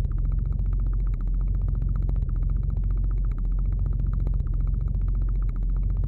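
Science-fiction electric motor vibration sound effect: a steady, deep electric hum with a fast, even pulsing buzz over it, dipping slightly about once a second.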